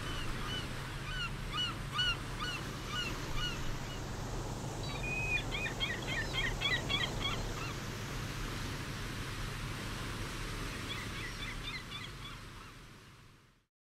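Gulls calling, short repeated cries a few times a second with a quick cluster of rapid calls midway and a few more near the end, over a steady sea ambience. The whole sound fades out shortly before the end.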